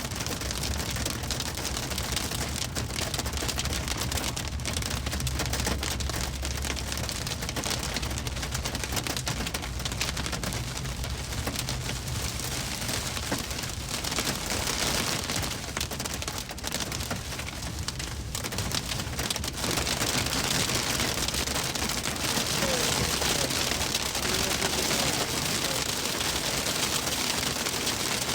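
Hail and heavy rain pelting a moving car, a dense steady clatter of small impacts, growing louder about two-thirds of the way through.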